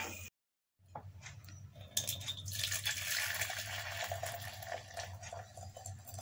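Hot Kashmiri pink tea (milky noon chai) pouring in a steady stream from a pan into a glass teapot, the splashing pour starting about two seconds in.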